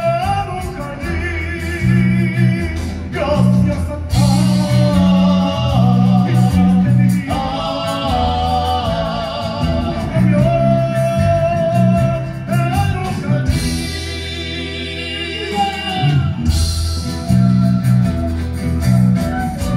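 Andean folk group playing live: several male voices singing with vibrato over strummed acoustic guitars and a bass line. About two-thirds of the way through, the bass holds one low note and the voices thin out briefly before the full band returns.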